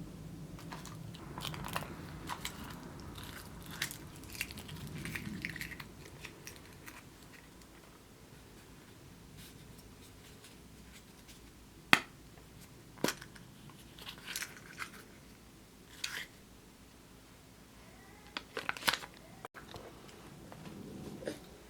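Kinder Surprise eggs being unwrapped and opened by hand: crinkly rustling for the first few seconds, then scattered sharp plastic clicks and snaps, the loudest about twelve seconds in and a quick cluster near the end.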